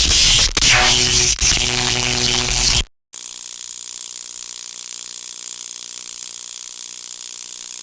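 Stun gun arcing in two zaps: a loud crackling burst lasting about three seconds, a short break, then a steadier, slightly quieter electric buzz made of rapid even clicks.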